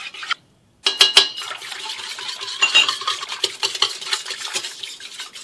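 Hand whisk stirring yeast into warm milk in a stainless steel bowl, its wires scraping and clinking against the metal. The stirring starts about a second in after a brief pause.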